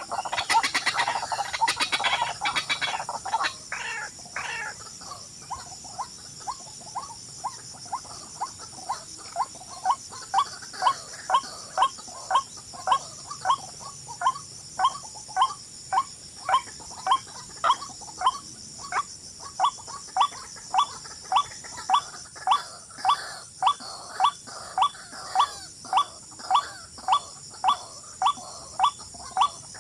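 An animal's short chirping call, repeated steadily about one and a half times a second after a few seconds of denser calling, over a steady high hiss.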